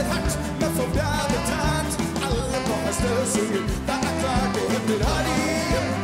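Live rock-and-roll band playing, a man singing the lead line into a microphone over a steady drum beat.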